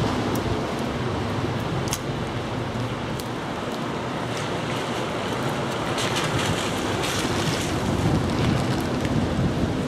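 Steady outdoor street ambience: a constant rushing noise with a few faint clicks, no voices standing out.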